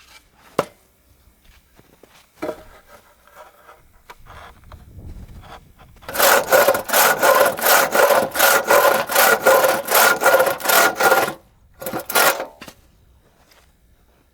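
Hand saw cutting wood in quick, even back-and-forth strokes, about three or four a second, with the blade ringing. It saws steadily for about five seconds, stops, then gives a few more strokes. Two sharp knocks come before it.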